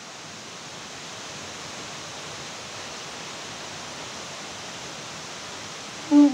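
Steady, even hiss with no tone in it, in the gap between long blasts of a blown horn; the low held horn note starts again near the end.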